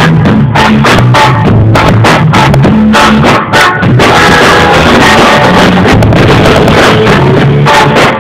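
Live band music, recorded very loud: a drum kit keeping a steady beat over a bass line and electric guitar. The separate drum hits stand out in the first half, then the sound turns into a denser, more even wash about halfway through.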